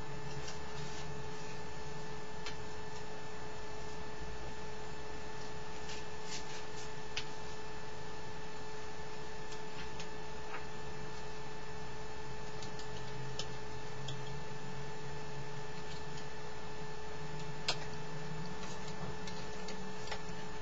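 Steady electrical hum with a thin whine over even hiss, with a few faint clicks scattered through.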